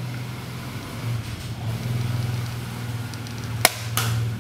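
Homemade pistol crossbow with a bamboo bow being shot: a sharp snap of the released string about three and a half seconds in, then a second click a moment later, over a steady low hum.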